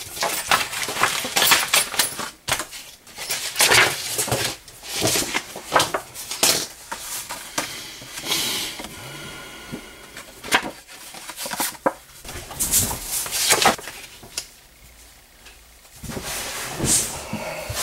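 Stiff paper being cut and handled on a work table. Irregular rustling and crinkling, with sharp clicks and knocks of hands and tools on the tabletop.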